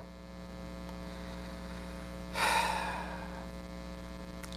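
Steady electrical mains hum with a short breathy rush of noise lasting about a second, just past the middle.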